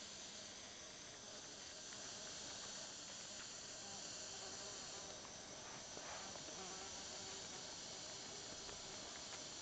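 Steady chorus of forest insects, a continuous high-pitched drone.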